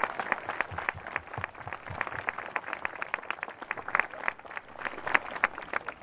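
A crowd of schoolchildren applauding, with single hand claps standing out in the dense clapping.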